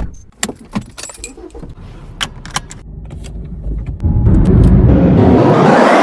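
Light metallic clicks and jingles, then about four seconds in a loud engine-like sound that rises steadily in pitch, like a motor revving up.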